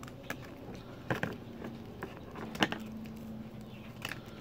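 Small plastic and paper survival-kit items being handled by hand: a few scattered sharp clicks and taps, the loudest about two and a half seconds in.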